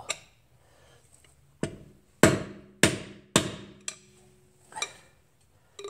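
A hammer striking metal: one lighter blow, then three hard blows about half a second apart, each ringing briefly, and two lighter knocks near the end.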